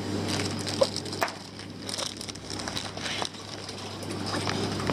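Plastic fish-shipping bags crinkling and crackling as they are handled and lifted out of a packed box, with a few sharp crackles, the sharpest about a second in.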